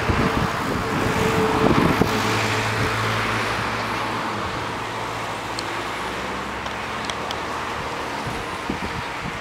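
Engine noise: a steady noise with a low hum that is loudest about two seconds in and then slowly fades, as of something passing at a distance.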